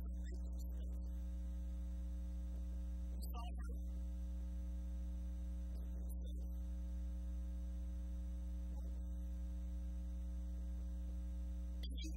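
Steady low electrical hum, a mains buzz with several steady overtones, holding unchanged throughout.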